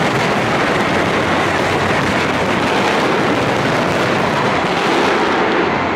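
Dense fireworks barrage: a great many shells bursting at once, merging into one continuous, loud crackle and rumble with no break.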